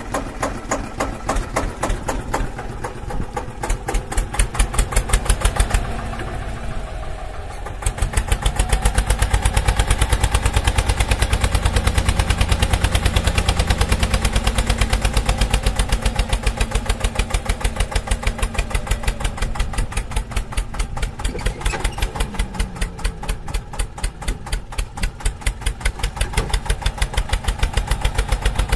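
Tractor engine running with a steady, fast thudding beat. It picks up and grows louder about eight seconds in, then slows again a little after twenty seconds.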